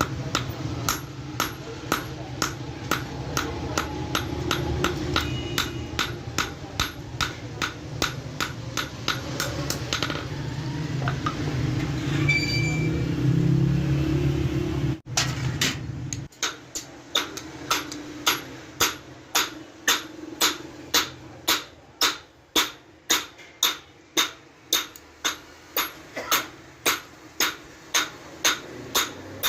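Blacksmith's hammer striking steel on an anvil in a steady rhythm of about two to three ringing blows a second, hand-forging a cobbler's knife, with a short break about ten seconds in. A low steady hum runs under the blows and stops abruptly about halfway through.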